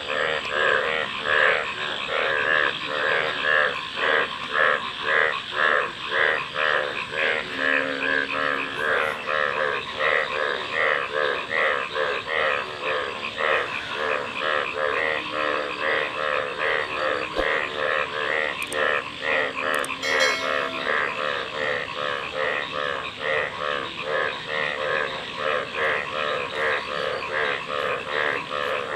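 Chorus of many frogs croaking together: a dense, unbroken run of rapid, overlapping pulsed croaks.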